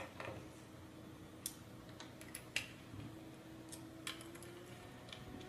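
Small screwdriver tightening the bolts on a robot kit chassis: faint, scattered clicks and ticks of the tool and the small metal parts, a few seconds apart.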